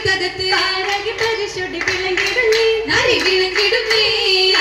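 Oppana performance: a group clapping in a steady rhythm together with the sung Mappila oppana song (oppanappattu).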